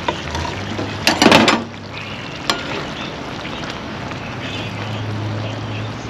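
A metal spoon scraping and knocking in a cooking pot as food is dished out, with one loud scrape about a second in and a single click a little later, over a steady low hiss and hum in the background.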